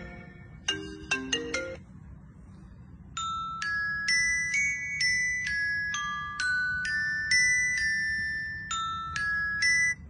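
Smartphone ringtone previews playing one after another: a short run of quick marimba-like notes stops about two seconds in, and after a short lull a different ringtone of longer chiming notes plays.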